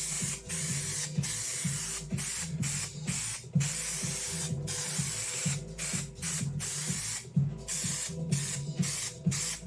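Aerosol spray-adhesive can hissing in a string of short sprays with brief breaks between them, as glue is laid along the panel's edge. Background music plays underneath.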